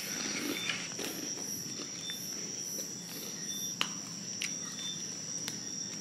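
Night insects, crickets among them, chirping steadily: a continuous high-pitched trill with a slower even pulsing above it, and a single sharp click about four seconds in.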